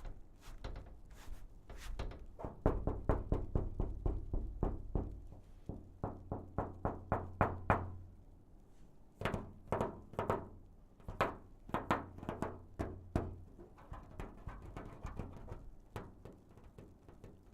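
Blows and knocks on a metal booth, some dull thuds and some ringing: irregular clusters of hits with quick runs of about four or five knocks a second and short pauses between.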